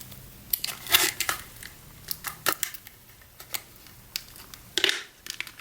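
Scattered light clicks and taps of laptop memory sticks and small hardware being handled, with a louder knock near the end.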